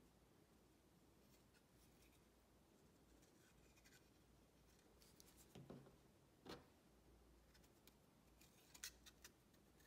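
Near silence: room tone with a few faint clicks and rubs as small plastic rocket parts and a glue bottle are handled. There is one soft click about the middle, then a small cluster of clicks near the end.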